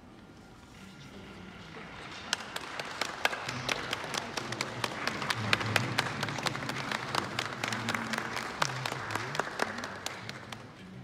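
Audience applauding, building up about two seconds in and dying away near the end.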